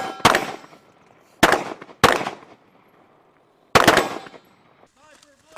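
Four rifle shots at uneven intervals, each a sharp crack with a short fading tail, following the tail of a shot fired just before.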